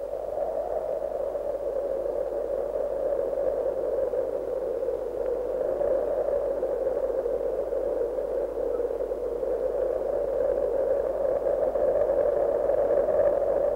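Steady wind noise, a hollow rushing that slowly swells.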